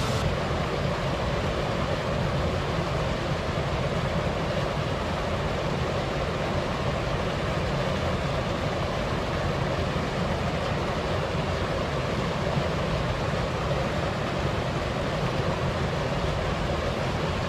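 Steady, even background noise with no distinct events, spread across low and middle pitches.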